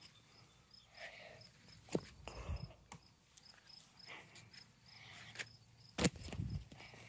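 Quiet footsteps on a grass lawn and the phone being handled, with two sharp knocks about two and six seconds in. A faint high ticking, like an insect chirping, repeats about three times a second.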